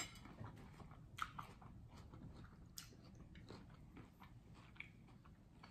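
Faint chewing of food, with small scattered mouth clicks and crunches.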